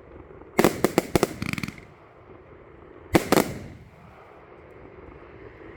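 J-Fireworks Miner compound of firework mines firing: a quick cluster of sharp bangs about half a second in that runs into a short crackling rattle, then another short group of loud bangs about three seconds in.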